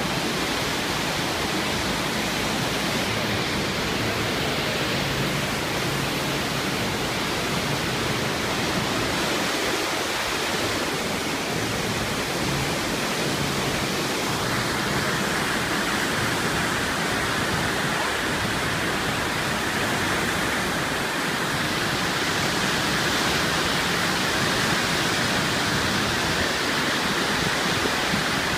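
The Arve river in flood, its fast, muddy water rushing steadily below a bridge.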